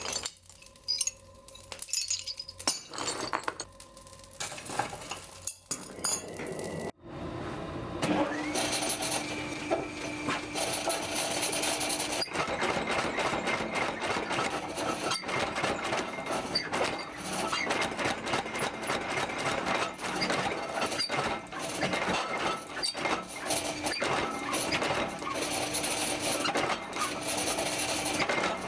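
Metal pieces clinking and knocking in separate strikes. About eight seconds in, a steady hum with a dense clatter over it starts and keeps going.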